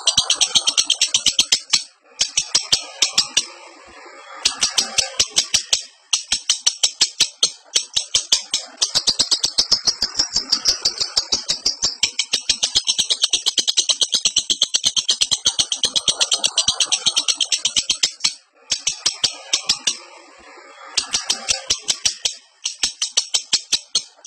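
Lovebird in breeding condition chattering its long rapid 'ngekek' song: fast strings of sharp, high chirps, several a second, broken now and then by short pauses.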